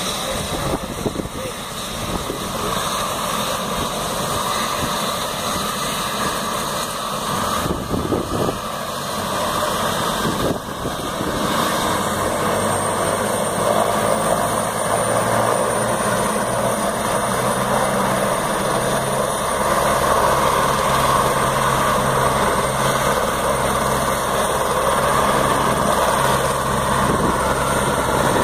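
Helicopter running on the ground, its engine and rotor making a steady noise. About twelve seconds in it grows louder, and a high turbine whine and a steady low hum join in.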